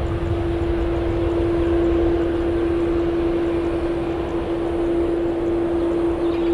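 Wide-body twin-jet airliner on its takeoff roll, engines at takeoff thrust: a steady jet rumble with a steady hum over it.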